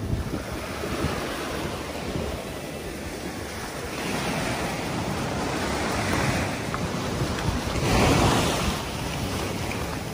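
Small surf waves breaking and washing up a sandy beach, with wind buffeting the microphone; the wash rises and falls, loudest about eight seconds in.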